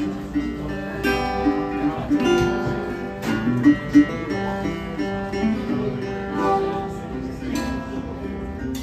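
Acoustic guitar playing a song's intro live, with strummed chords and picked notes ringing between them, before the vocals come in.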